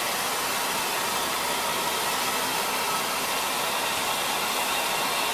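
Steady hiss of steam from the BR 58 311 steam locomotive standing still, with no exhaust beats.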